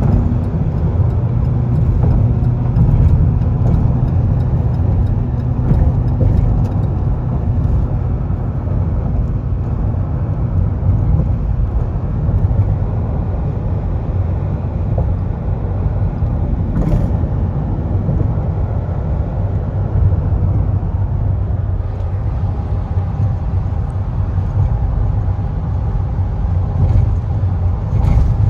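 A vehicle's steady low rumble with a faint engine drone, holding level throughout.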